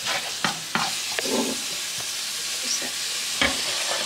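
Minced meat and tomato sauce sizzling in a frying pan, stirred with a wooden utensil: a steady frying hiss with scattered scrapes and knocks against the pan, a louder knock about three and a half seconds in.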